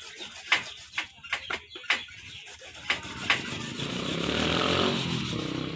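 Cassava being grated by hand on a flat grater: short scraping strokes at irregular intervals, roughly one or two a second. In the second half a louder steady rushing noise with a low rumble swells and then fades.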